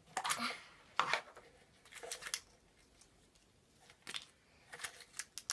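Hard plastic surprise-egg capsule being pulled apart and handled: a scattering of short, sharp clicks and knocks with quiet gaps between them, and a quick cluster of them near the end.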